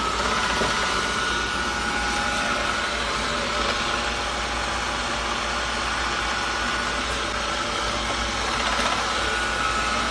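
Roborock E20 robot vacuum running: a steady rushing whir from its suction fan, with a thin high whine held over it.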